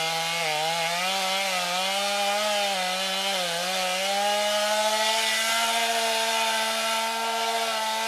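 Two-stroke chainsaw running at full throttle as it cuts through the trunk of an ash tree being felled. The pitch dips twice as the chain bogs down in the cut, about half a second in and again about three and a half seconds in, then holds steadier toward the end.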